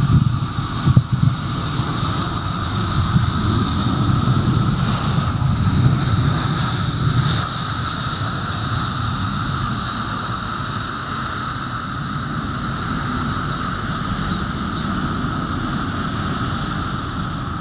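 Airbus A320-family jet landing and rolling out: the engines give a steady high whine over a deep rumble, and the rumble eases off about seven and a half seconds in. A few brief thumps near the start, as the wheels touch down.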